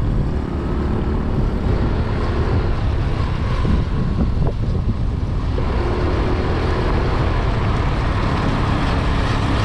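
Steady engine drone and road noise of a moving motor vehicle, heard from on board. It cuts off suddenly at the end.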